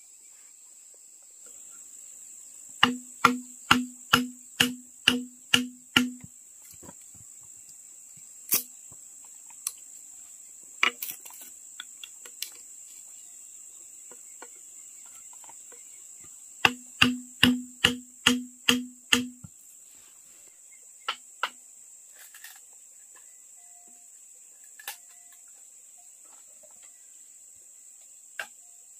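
Two quick runs of hard striking knocks, about seven strokes each at two to three a second, each stroke with a short hollow ring, and a few single knocks in between. A steady high chirring of crickets runs underneath.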